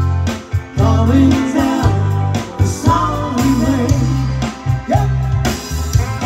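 Live band playing an upbeat pop song: a woman singing lead over electric guitar, bass guitar, drum kit and keyboard, with a steady beat and a strong bass line.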